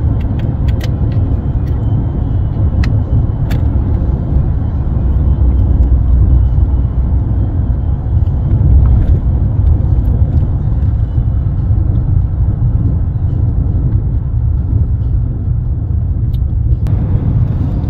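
Steady low rumble of a vehicle driving at highway speed, heard from inside the cab, with a few faint clicks in the first few seconds. The higher hiss drops away about a second before the end.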